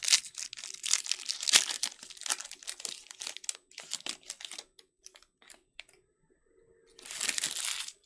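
Foil trading-card pack wrapper being torn open and crinkled, a dense crackling rustle for about five seconds. Near the end there is a brief rushing swish, likely the cards being slid out.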